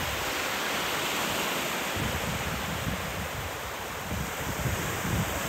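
Surf washing onto a sandy beach, with wind buffeting the microphone from about two seconds in.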